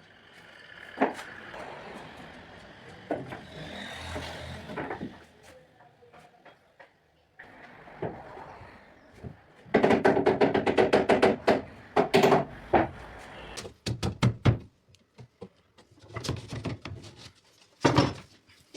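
Woodworking sounds mixed with music: separate knocks and thuds on wood, with a dense rattling, pitched stretch a little past the middle.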